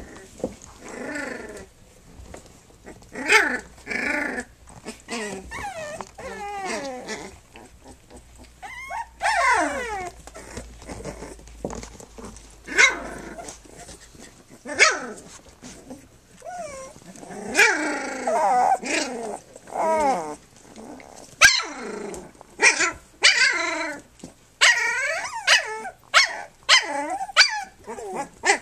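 Three-week-old Standard Schnauzer puppies calling as they scramble and play together: many short high calls, some gliding up and down in pitch, coming in quick succession.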